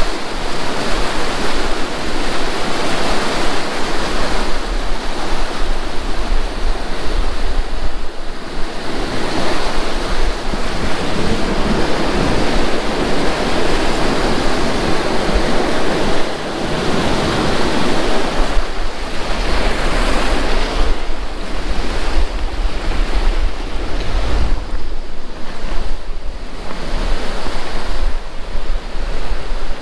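Steady rushing water of a mountain stream at a natural pool, with wind gusting on the microphone.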